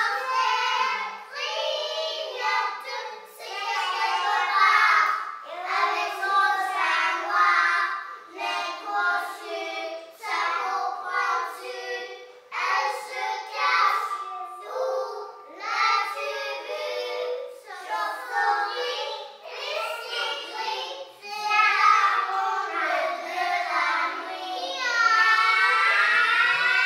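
A small group of young children singing a French nursery song together in short phrases. Near the end their voices slide upward on a long high note.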